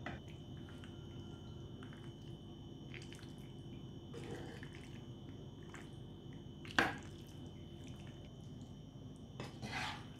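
Soft, wet squishing of cooked pasta being stirred and lifted with a plastic spatula in a nonstick pan, over a faint steady hum. One sharp click about seven seconds in is the loudest sound, and a short soft clatter comes near the end.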